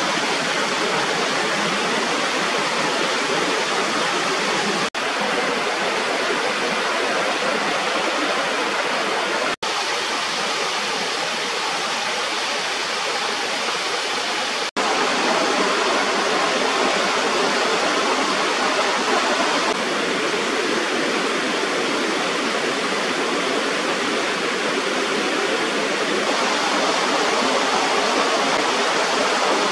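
Small waterfall pouring over a rubber weir: a steady rush of falling water, broken by three momentary gaps about 5, 10 and 15 seconds in and a little louder after the last.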